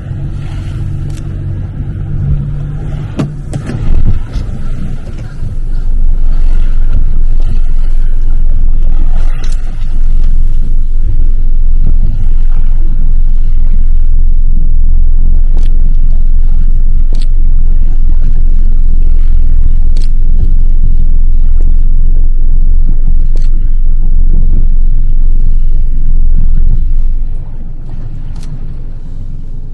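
Loud, steady low rumble of a vehicle under way, jumping much louder about six seconds in and falling back near the end, with scattered sharp clicks and knocks.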